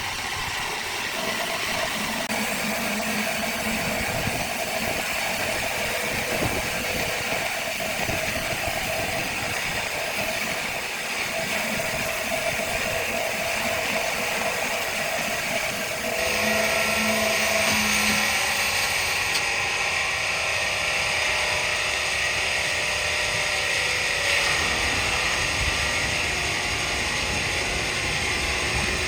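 Heavy machinery running steadily, its tone changing and getting a little louder about sixteen seconds in.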